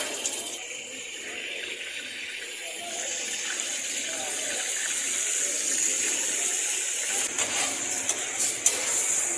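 Hot oil sizzling steadily on a large flat iron tawa around food frying in it, growing gradually louder. Near the end a metal spatula scrapes and taps on the tawa a few times.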